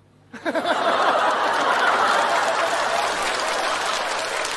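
Studio audience laughing and applauding, starting about half a second in after a brief hush and then holding steady.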